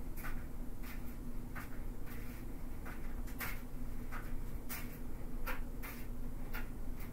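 Short, faint clicks and ticks at irregular intervals, roughly one or two a second, over a steady low electrical hum.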